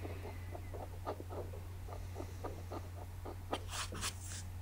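Blunt scalpel blade scraping fused overpaint from an oil painting's canvas in short repeated strokes, about three or four a second. The blade is shaving the peaks of the thick overpaint down to the original paint layer.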